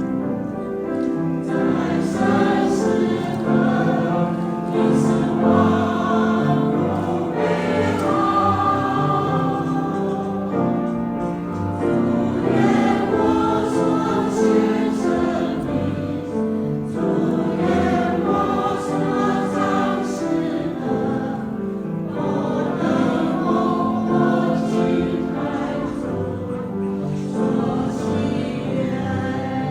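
Church choir singing a hymn in sustained, continuous phrases.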